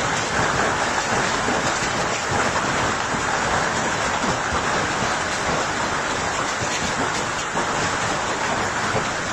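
Hail and heavy rain pelting down, a dense steady hiss full of small impacts as the stones strike water and hard outdoor surfaces.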